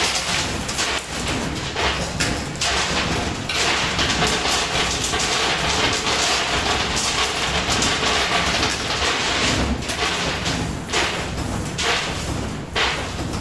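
Coin pusher arcade machine running, with a dense, steady clatter of coins and many small clicks over machine noise.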